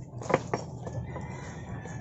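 Two sharp knife chops a fifth of a second apart, about a third of a second in, as green onions are cut; chickens are heard faintly in the background.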